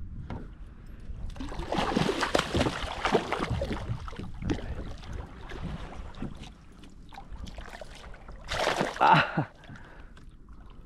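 Water splashing and sloshing at a fishing kayak's side as a hooked largemouth bass is fought to the boat: a longer spell of splashing starting about a second and a half in, and a short louder splash near the end.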